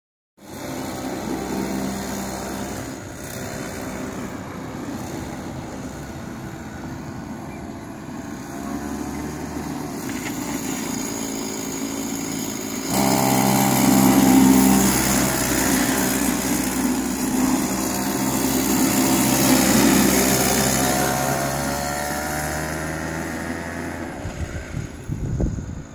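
Children's go-kart's small engine running at a fairly steady speed as the kart drives around. It gets much louder suddenly about halfway through as the kart is close by, then slowly fades toward the end.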